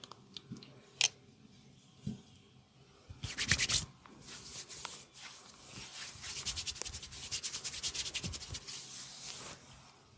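Hands rubbing and scratching briskly over skin or hair during a massage, in fast scratchy strokes that run for several seconds and stop near the end. A sharp click comes about a second in, and a short dense burst of rubbing about three seconds in.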